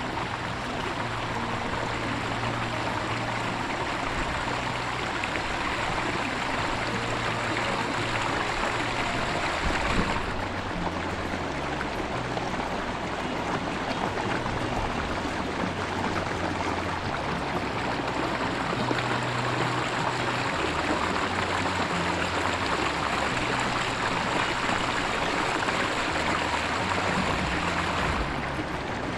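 Steady rush of water spilling over a beaver dam of sticks and packed mud.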